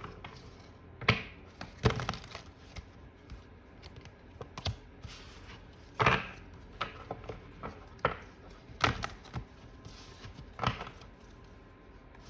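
Tarot cards being handled and set down on a table: irregular sharp taps and slaps with soft rustling of card stock between them.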